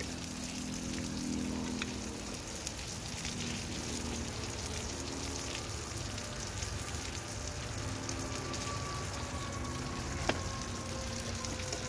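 A large burger patty sizzling steadily on a hot Blackstone flat-top griddle, with one sharp click about ten seconds in.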